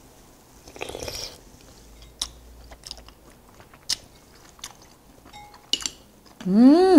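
Close-miked chewing of a mouthful of rice cake and dumpling soup, with a few sharp clicks, then near the end a hummed "mmm" of enjoyment that rises and falls in pitch.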